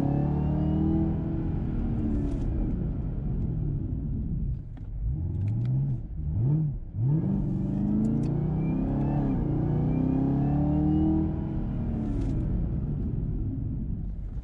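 Supercharged 6.2-litre LT4 V8 of a Camaro ZL1 1LE, heard from inside the cabin through its 3-inch catback exhaust, accelerating hard and then dropping off as the car brakes. The engine pitch climbs, falls away about four seconds in, swoops up and down briefly, climbs again, and falls near the end: the repeated hard accelerations and stops of bedding in new brake pads.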